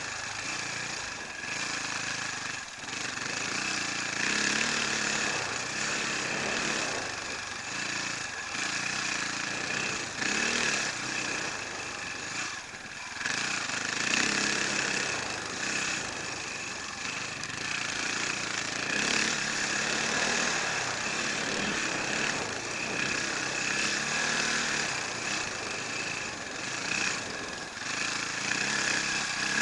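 Enduro motorcycle engine running under changing throttle, its pitch rising and falling again and again as the bike rides a snowy trail, with a steady high whine over it.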